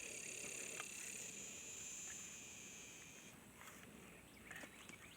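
Faint, steady high-pitched chirring of insects, with one layer stopping about three seconds in, and a few soft ticks near the end.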